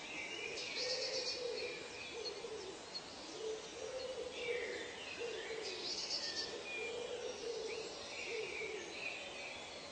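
Forest bird ambience: a low hooting call repeated over and over, with higher bird chirps and calls above it and a steady background hiss.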